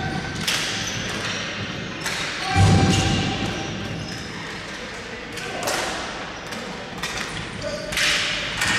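Ball hockey play in an echoing indoor rink: sharp knocks of sticks and ball, with the loudest, a heavy thud, about two and a half seconds in, and players shouting.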